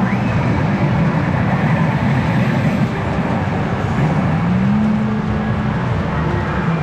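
Pachinko parlour din: a loud, steady clatter and roar of pachinko machines and balls. About four seconds in, a low tone glides up and holds for about a second.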